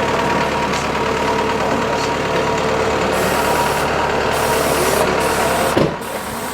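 Rally car engine idling steadily, with a hiss coming and going from about halfway through; near the end the engine note dips briefly and the sound gets a little quieter.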